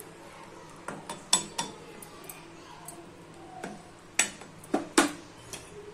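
Wooden spatula stirring thick soup in a stainless steel pot, knocking against the pot several times: a cluster of sharp knocks about a second in, and more about four seconds in, the loudest near the end.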